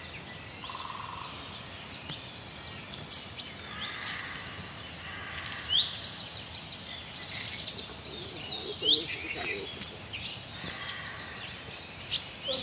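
Small birds chirping repeatedly, with quick runs of notes and short rising calls, over scattered sharp clicks and taps from the cast net and small fish being handled on wet ground.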